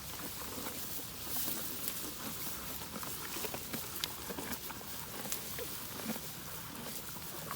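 Cattle eating hay: dry hay rustling and crunching as it is pulled and chewed, with many irregular small clicks and snaps.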